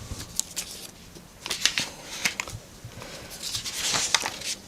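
Rustling and scattered light clicks of objects being handled close to the microphone.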